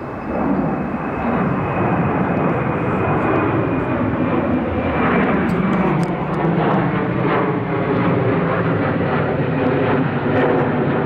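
Jet airliner engines running loud and steady, with a faint high whine that fades over the first few seconds.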